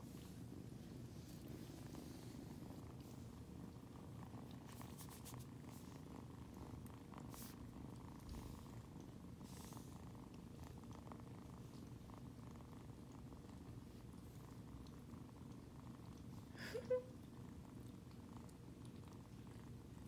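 A tabby kitten purring steadily while being stroked, with one brief sharp sound about three-quarters of the way through.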